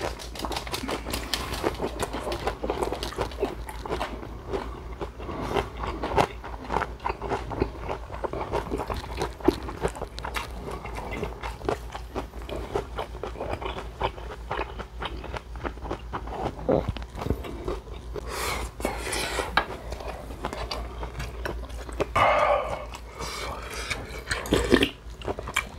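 Close-up mouth sounds of eating: irregular chewing and crunching of food with small clicks throughout, and a louder slurp of a spoonful of beef and radish soup near the end.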